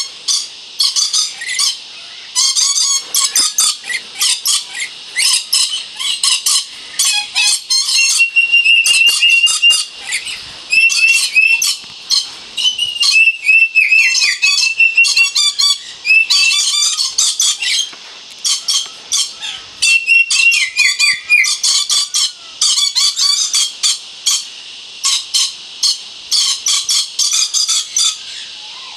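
Moluccan red lories calling: runs of shrill, rapidly repeated screeches throughout, mixed with short gliding whistled notes.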